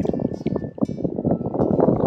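Wind buffeting the microphone: an uneven, gusting rumble.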